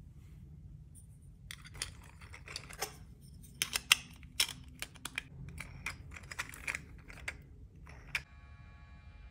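3D-printed plastic parts clicking and clacking irregularly as they are handled and pressed together, a ring pushed onto a disc and the discs fitted onto the body. Near the end the clicks stop and faint steady music tones begin.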